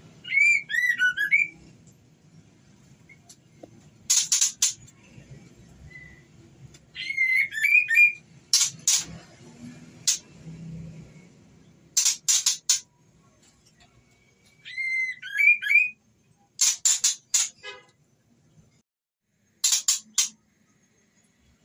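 Female white-rumped shama in breeding condition calling for a male: brief warbling whistled phrases alternating with harsh rasping bursts of a few quick notes each, repeated every couple of seconds.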